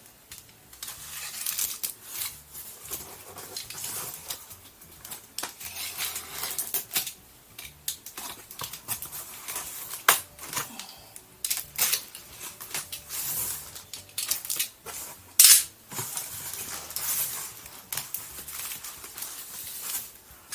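Adhesive tape being peeled and pulled off a taped-up toy package, with rustling and scraping of the packaging and frequent sharp clicks as it is handled, one click about 15 seconds in louder than the rest.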